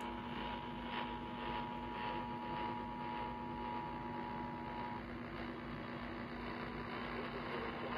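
Emergency Alert System two-tone attention signal (853 Hz and 960 Hz sounded together) received over a hissy AM radio broadcast, cutting off about five seconds in. After it only radio static and a steady low hum remain.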